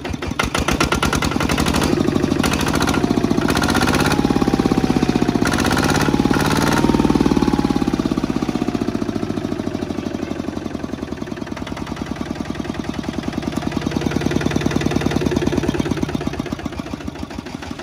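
Kubota ZT140 DI single-cylinder diesel engine running with a rapid, even pulse, its loudness swelling and easing a few times.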